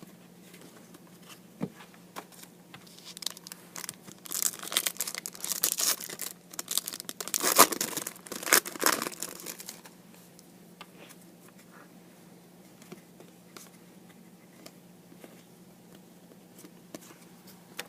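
Foil wrapper of a trading-card pack being torn open and crinkled for several seconds, loudest about halfway through, followed by faint clicks of cards being handled.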